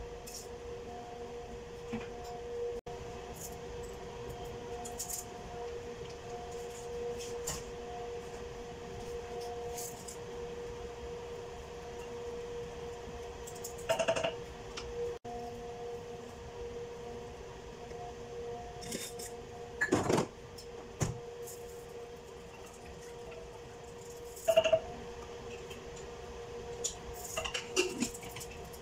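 Aluminium pressure cooker being worked on a gas stove: a few sharp metal clinks and clatters from a spoon and the pot, the loudest around the middle and near the end as the lid is fitted and locked on. Under them runs a steady low hum.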